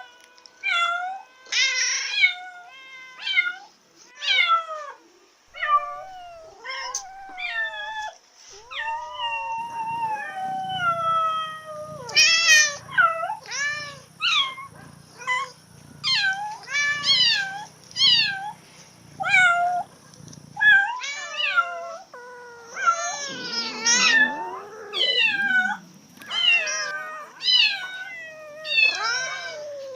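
Cats in heat meowing over and over, one call after another about every second, each call bending up and down in pitch: the calls of cats in heat. A low regular pulsing runs underneath through the middle of the stretch.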